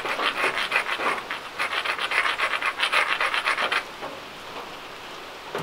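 Flint edge being abraded with quick back-and-forth scraping strokes, grinding down the edge to build a striking platform so the percussion blow will bite instead of glancing off. The scraping stops about four seconds in.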